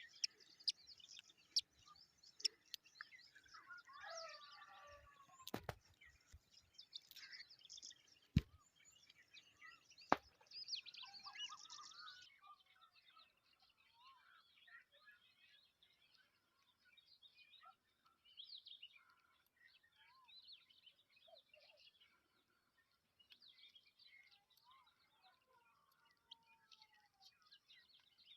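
Faint birds chirping and calling, many short chirps throughout, with three sharp clicks or taps about a third of the way in.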